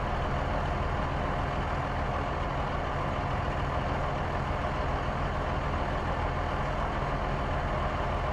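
Motor vehicle engine sound effect running steadily, an even low rumble that holds the same level and pitch throughout.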